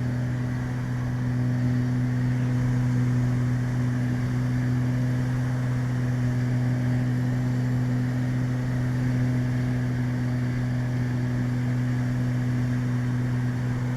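Steady drone of a Beechcraft Baron's twin six-cylinder piston engines and propellers, heard inside the cockpit in flight: an even, unchanging hum with a low tone and a second one above it.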